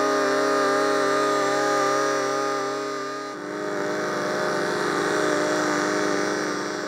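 Sequential Circuits Prophet-5 five-voice analog synthesizer playing a sustained chord, which changes to a different held chord about three and a half seconds in.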